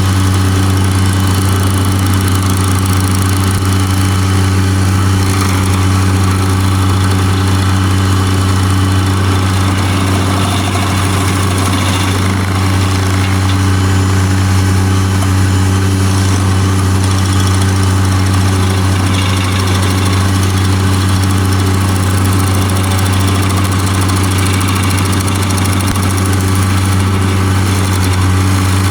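Bobcat MT100 mini track loader's engine running steadily under load, powering an SG30 stump grinder attachment as it grinds down a stump. The steady, unbroken engine drone stays even throughout.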